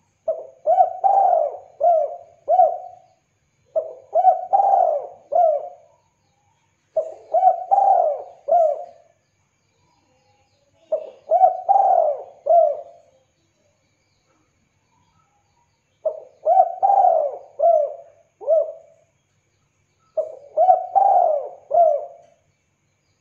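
Spotted dove (tekukur) cooing: six phrases of four or five coos each, repeated every few seconds with short pauses between them.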